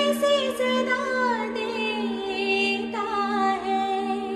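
A woman singing a slow, ornamented Hindi film song over a sustained synthesizer chord. Her voice glides between held notes, with a falling phrase about a second in and a new phrase near the end.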